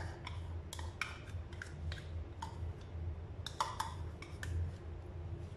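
A spoon tapping and scraping butter out of a plastic measuring cup into a mixing bowl: a scatter of light, irregular clicks and taps over a steady low hum.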